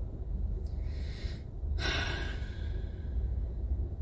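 A woman breathing: a soft breath in, then a louder breath out about two seconds in, over a steady low hum in the car cabin.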